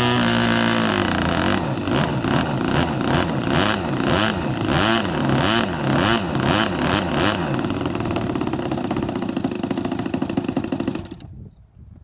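15 cc two-stroke gas engine and propeller of a large RC Spitfire model running on its first start-up. It runs fast, drops in speed about a second in, then swings up and down in speed about every two-thirds of a second, settles, and cuts off suddenly near the end.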